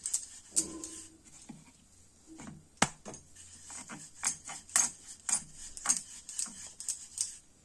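Wooden rolling pin rolling and knocking on a wooden board while a stuffed paratha is rolled out, with bangles on the wrist clinking in quick, irregular clicks, and one louder knock about three seconds in.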